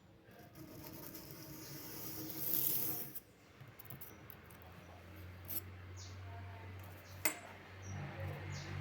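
A metal clipper blade scraping against an abrasive surface, building up over about three seconds as it is sharpened. A low steady hum follows, with a sharp click near the end and faint bird chirps.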